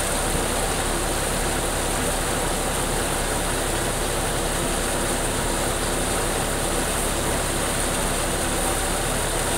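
Tractor-driven groundnut (peanut) thresher running steadily while peanut vines are fed in: the John Deere tractor's diesel engine and the threshing machine make one constant mechanical noise with no letup.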